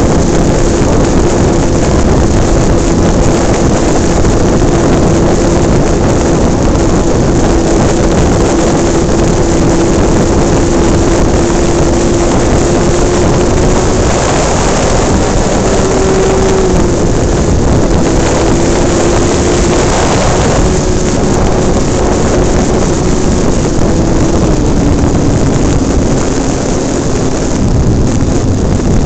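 RC model airplane's motor and propeller heard from a camera mounted on the plane: a steady drone, with wind rushing over the microphone. The pitch wavers slightly a few times and drops to a lower note near the end.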